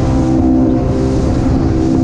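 Center-console motorboat's engine running steadily at cruising speed.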